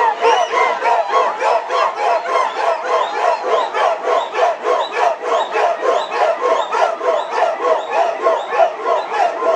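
Large crowd chanting in unison, with many voices giving short, rising shouts in a fast, even rhythm. It is a traditional Papuan highland group war-dance chant.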